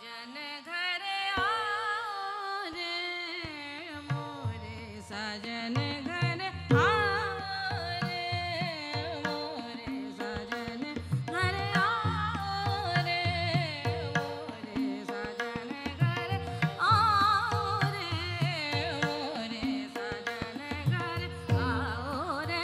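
A woman singing an Indian classical song with a tanpura drone, her voice gliding and ornamenting the melody. Tabla strokes accompany her, coming in after about a second and a half.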